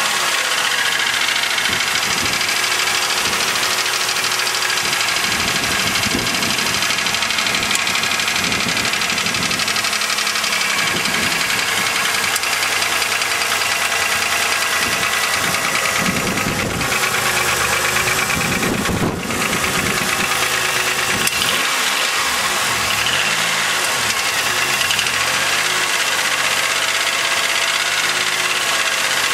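2000 Chevrolet Malibu's 3.1-litre 3100 V6 running steadily with a knocking noise, which the owner takes for piston slap.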